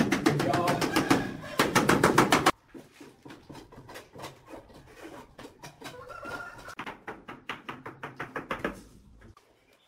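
Quick, loud repeated tapping of a mallet on a ceramic wall tile to bed it, stopping abruptly about two and a half seconds in. Then quieter, quick light taps of a hammer handle on a large tile being pressed into mortar.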